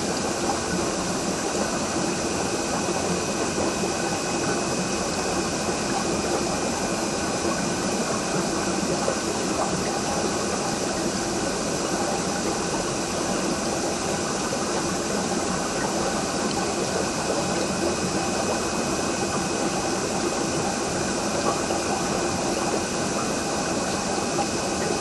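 Aquarium pump or filter running: a steady hum of several held tones over an even wash of water noise.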